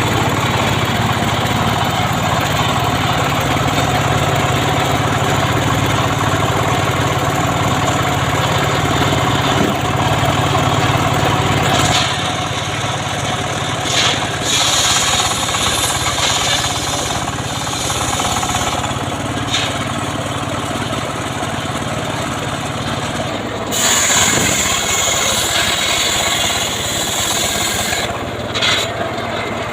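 Homemade engine-driven sawmill cutting sengon wood: a steady engine drone with the blade rasping through the timber. About halfway through, the low drone eases and a hissing, scraping sound rises and falls as the cut goes on.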